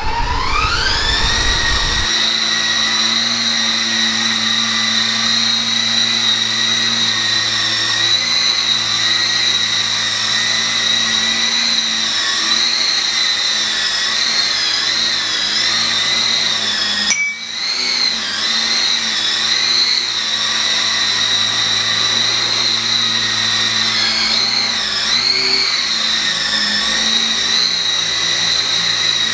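E-sky Lama coaxial RC helicopter's electric motors and rotors spooling up with a rising whine over the first couple of seconds, then running at a steady high whine. The pitch wavers now and then, and the sound dips briefly a little past halfway.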